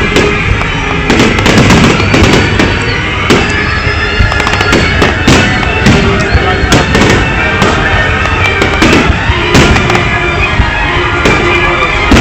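Fireworks display: frequent bangs and crackling of exploding shells over loud music played for the show.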